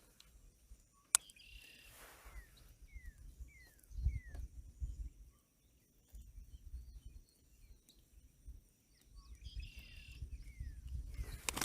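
Outdoor ambience with a bird's short chirps, including a few quick falling calls, over a low rumble of wind. There is a sharp click about a second in.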